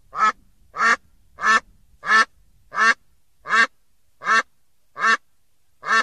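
A duck quacking in a steady, evenly spaced series of nine short quacks, about one every 0.7 seconds.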